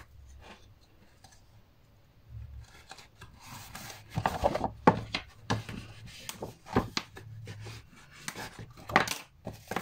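Paper and card being handled and pressed down by hand: after a short quiet start, a run of rustling and scraping with a few sharp taps as fingers rub down box edges stuck with double-sided tape.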